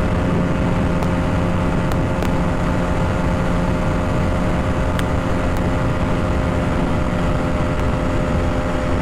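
Aprilia RS 125's single-cylinder four-stroke engine running steadily at high revs while the bike cruises at about 130 km/h, with a constant engine drone under the rush of wind and road noise.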